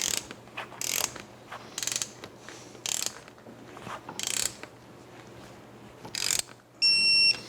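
Ratchet wrench tightening an Allen-head fork clamp bolt, its pawl clicking in short bursts about once a second as the handle is swung back and forth. A short, high-pitched beep sounds near the end.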